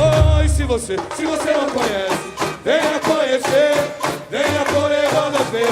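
Samba-enredo sung live by a samba school's singer over the bateria's batucada. The deep drums drop out about a second in, leaving the voice over lighter percussion.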